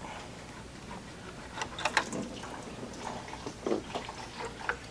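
Upper radiator hose being worked off its neck by hand, with a few scattered clicks and knocks of the hose, spring clamp and surrounding plastic parts being handled, a cluster of them a little under two seconds in.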